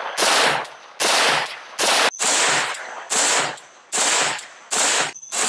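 Arsenal SLR-104 rifle in 5.45×39mm with an SRVV FHMB muzzle brake, fired semi-automatically: about seven sharp shots at a steady pace, roughly one every 0.8 seconds, each followed by a short echoing tail.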